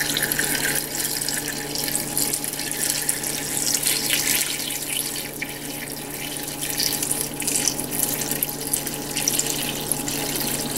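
Water pouring in a steady stream from a plastic pitcher into a large stockpot, splashing over chicken pieces and chopped celery, carrots and onions as the pot is filled to start a chicken stock.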